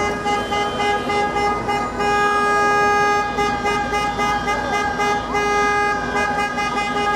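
Car horns held down almost without a break in a queue of stopped traffic, a steady blaring tone that drops out briefly about a quarter second in and again about two seconds in, over street noise.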